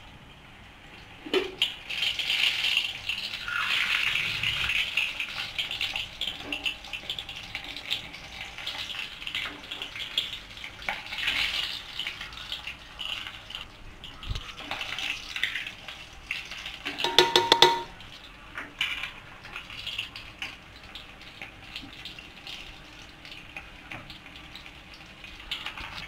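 Kitchen handling sounds as toppings are spread over the rice in a metal pot: uneven rustling and scraping, with a quick rattle of a steel spoon against the pot about two-thirds of the way through.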